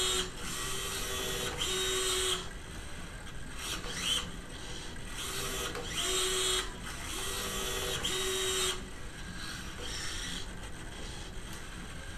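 The electric joint actuator in the homemade humanoid robot's right ankle whirs in a series of short bursts of a second or less, each a steady whine, as it pitches the foot down and back. The bursts stop about three quarters of the way through.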